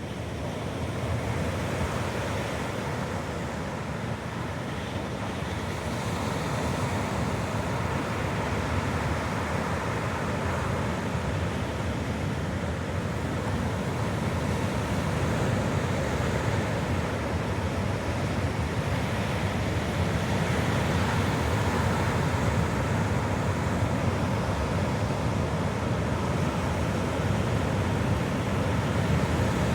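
Heavy surf from a typhoon swell breaking on the shore, a continuous wash of noise that grows slightly louder over the stretch, with wind buffeting the microphone.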